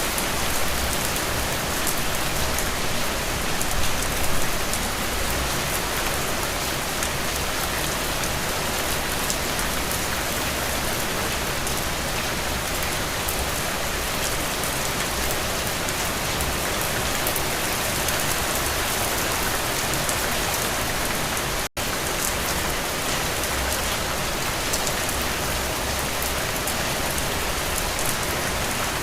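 Steady rain falling on a surface: a dense, even hiss with many fine drop ticks. The sound cuts out for a split second about two-thirds of the way through.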